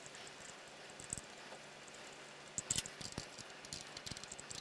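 Scattered light metal clicks and taps from a brake line fitting being threaded into a motorcycle's front brake caliper and worked with an open-end wrench, with a short cluster of clicks a little before three seconds in.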